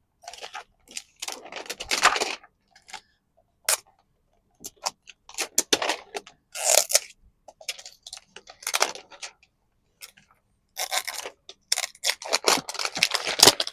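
A small plastic toy refrigerator and its packaging being handled: irregular clicks, scrapes and short rustles with brief quiet gaps between them.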